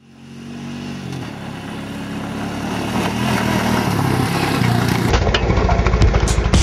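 Electronic song fading in: a buzzy synth line stepping through notes, rising in level, then a pounding drum beat with heavy bass comes in about five seconds in.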